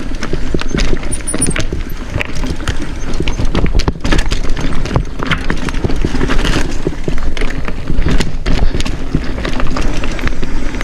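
Mountain bike clattering down a rocky, root-strewn trail: a dense, irregular run of knocks and rattles from the tyres, chain and frame striking over rock, over a steady low rumble.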